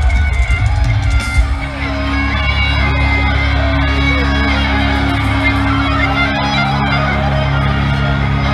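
Live heavy metal band playing through a stadium PA, heard from within the crowd: heavy drums and distorted electric guitar. The pounding low end drops out about two seconds in, leaving a held low chord with guitar notes over it, and shouts rise from the crowd.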